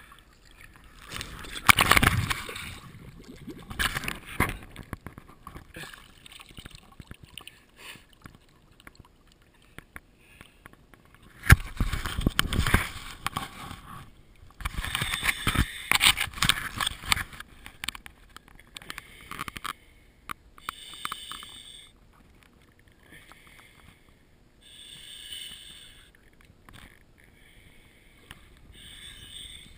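Water sloshing and splashing against a waterproof camera housing at the surface of a lake, in uneven bursts. The loudest come about two seconds in and between about eleven and seventeen seconds in, with fainter lapping after that.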